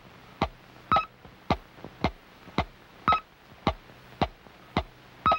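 Electronic sound effect of evenly spaced sharp blips, a little under two a second, with a short higher beep on every fourth blip, like a machine or radar pulsing.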